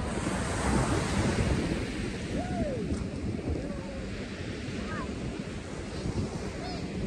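Sea waves washing onto a beach, with wind buffeting the microphone. Faint distant voices come through now and then.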